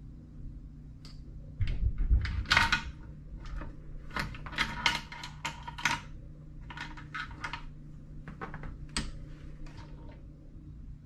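Irregular metallic clinks and knocks of tools and engine parts as the YZ250F's crankcase halves are worked apart, with a heavier thump about two seconds in.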